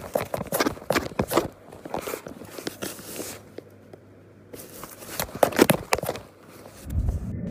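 Close, irregular crackling and clicking, like a phone rubbing against a cat's face and the cardboard around it, with a quieter gap in the middle. A muffled low rumble starts near the end.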